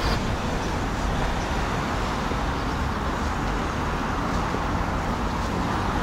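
Steady road traffic noise from cars, an even rushing hum with no single vehicle standing out.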